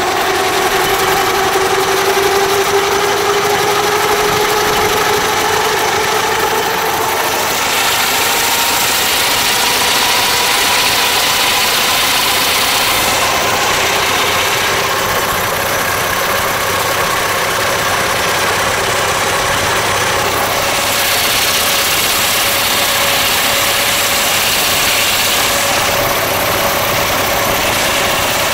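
Burrell double-crank compound road locomotive running along a paved road at speed: a steady mechanical running noise with a tone that slowly rises in pitch over the first dozen seconds, over a hiss that swells and fades several times.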